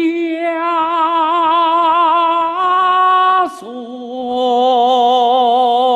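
A male voice singing in Peking-opera style, drawing one syllable out over several seconds with a wide vibrato: a long held note that steps up slightly, breaks off, then settles onto a lower wavering note.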